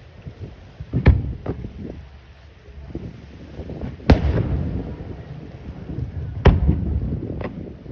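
Aerial fireworks shells bursting in the sky: sharp bangs about a second in and again half a second later, the loudest about four seconds in, and two more near the end. Each bang is followed by a low rolling rumble.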